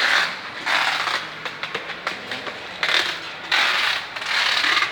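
Handling noise: a run of irregular scraping, rustling bursts, about five of them, each under a second long.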